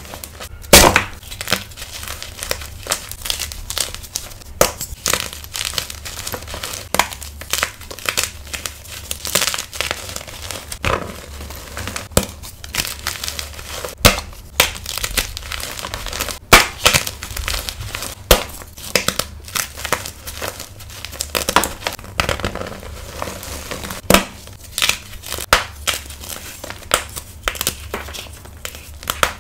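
Blocks of gym chalk being squeezed, snapped apart and crumbled by hand: a continuous run of irregular crunches, with a few louder snaps.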